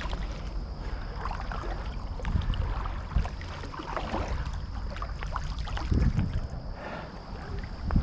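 Water sloshing and splashing with wading steps through shallow water, a surge about every second and a half, over a low wind rumble on the microphone.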